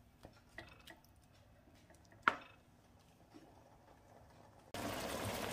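Mostly quiet, with faint light clicks and one sharp tap about two seconds in. Near the end a steady sizzle starts suddenly: squid adobo sauce simmering down in the wok.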